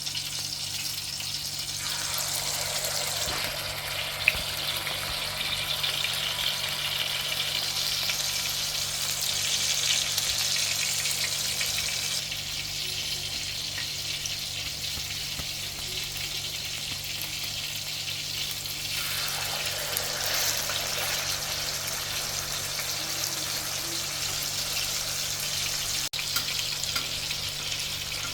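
Chapli kababs frying in hot oil: a steady sizzling hiss that swells louder twice, with one sharp click about four seconds in.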